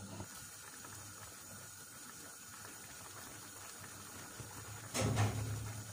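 Tomato and beef stew simmering in a pan on a gas burner, a faint steady bubbling. A short knock about five seconds in.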